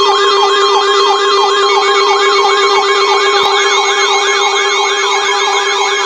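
Electronic emergency-alert siren tone: a loud pitch sweeping up and down about three times a second over steady held tones.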